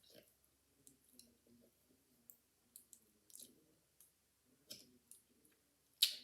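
Soft wet mouth clicks and lip smacks from licking a Brain Licker sour liquid candy, with a sharper click near the end.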